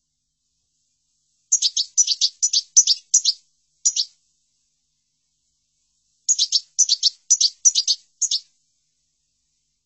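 European goldfinch singing: two short phrases of quick, twittering chirps, each about two seconds long, with a pause of about two seconds between them.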